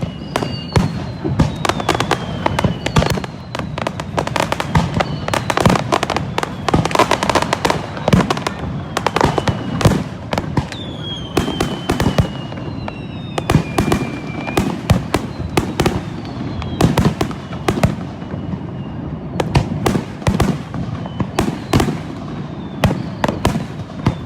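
Fireworks display: a rapid, continuous run of sharp bangs and crackling bursts, with several whistles that glide down in pitch.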